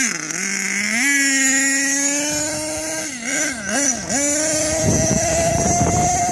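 HPI Savage X 4.6 RC monster truck's small nitro engine, blipped in quick revs that rise and fall, then held high as the truck drives off, its pitch creeping up. A rough noise from the tyres on loose dirt joins in about five seconds in.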